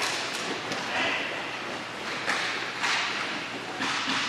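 Hockey sticks cracking against the puck or ball and the floor, several sharp knocks over a few seconds that ring out in a large echoing hall. A short shout from a player comes about a second in.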